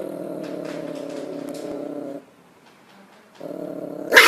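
A pet animal making a low, steady rumbling sound for about two seconds, then again briefly after a short pause, cut off by a sudden loud burst of sound near the end.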